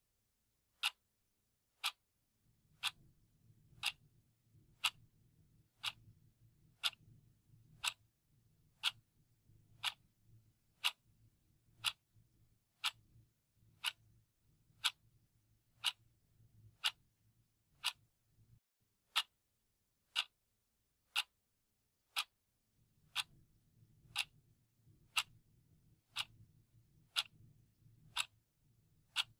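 Clock ticking steadily, one crisp tick a second, in step with a countdown of the final minute.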